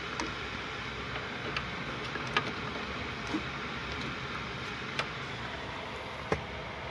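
Steady low background hiss with a handful of faint, irregularly spaced clicks and taps, like small handling noises.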